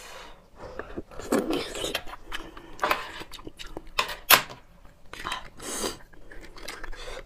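Close-up handling of roasted marrow bones: bones clatter and a thin metal spoon scrapes inside a bone's hollow in short bursts, with one sharp knock about four seconds in.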